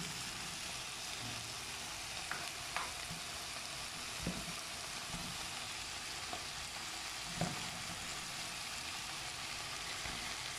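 Sausages and onions frying in a pan with a steady sizzle. A few faint clicks come from a fork pricking the sausages so that they release their water.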